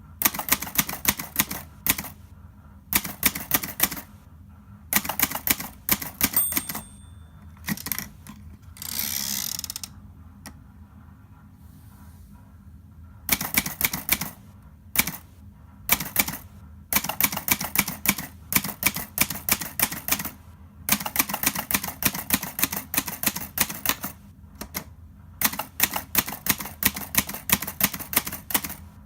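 Hermes Baby portable manual typewriter being typed on: quick runs of sharp key strikes with short pauses between them. About six seconds in there is a brief ringing tone, followed by a longer rasping slide about two seconds later.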